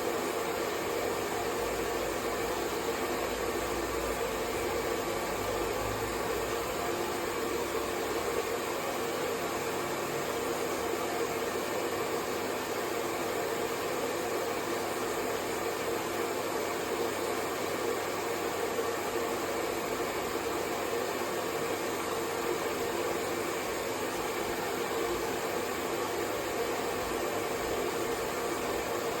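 Hair dryer running continuously: a steady, unchanging whoosh of fan and airflow with a faint motor hum.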